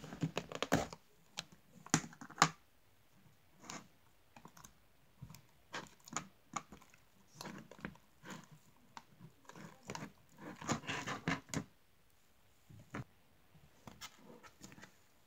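Glad plastic food container and its snap-on lid being handled and opened, and a clump of slime pulled out and handled: irregular clicks and crackles, sharpest about two seconds in, with a busy cluster around eleven seconds.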